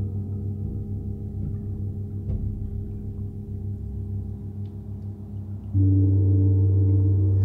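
Low ringing of gongs, held and slowly fading, with a few faint ticks. About six seconds in, a large hanging gong is struck with a mallet and a much louder, deep steady ring takes over.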